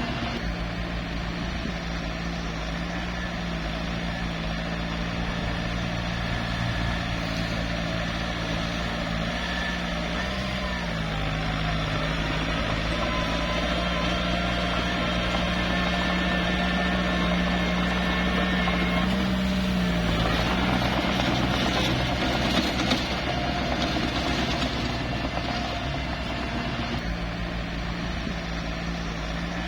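Small bulldozer's diesel engine running steadily, working harder and louder through the middle, with its pitch briefly rising and then dropping a little past the halfway point. Two sharp knocks sound a little past the two-thirds mark.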